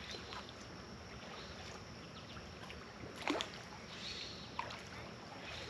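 Steady faint rush of water at a creek edge, with a few small clicks and one sharp, brief sound about three seconds in.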